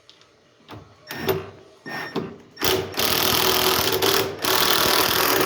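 Drill driving a wood screw through a door hinge into a hole packed with wood shims: two short bursts, then a steady run of about three seconds with a brief break, as the screw goes in and seats.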